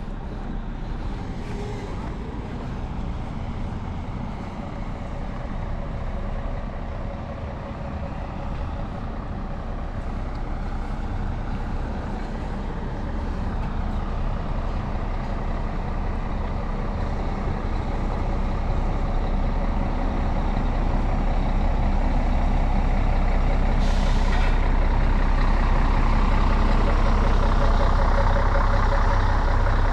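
A vehicle engine running steadily and growing gradually louder, with a short hiss about 24 seconds in.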